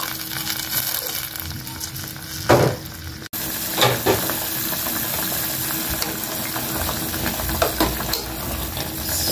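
Vegetables bubbling in water in an aluminium pot on a gas stove, a steady hissing simmer. A ladle stirs through the pot near the end.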